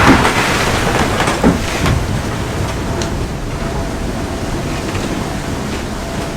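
Gale-force wind of about 45 knots buffeting the microphone, with waves rushing and breaking around a sailing catamaran's hulls. A loud surge of water comes right at the start.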